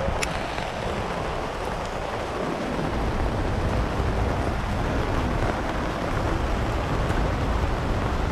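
Steady heavy rain falling on wet pavement and stall canopies and tarpaulins, with a constant low rumble of wind buffeting the microphone.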